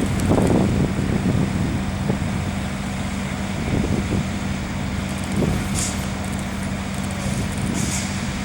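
Diesel engine of a ready-mix concrete truck running steadily with a constant low hum, with two short hisses about six and eight seconds in.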